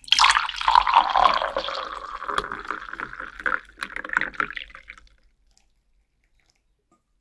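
A milky drink poured in a steady stream from a vacuum flask into a mug, splashing and frothing, its pitch rising as the mug fills. The pour stops about five seconds in.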